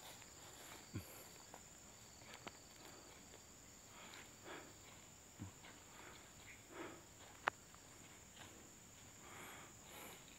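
Faint footsteps on dry ground and leaf litter, one every second or two, with a single sharp click about seven seconds in, over a steady high-pitched tone.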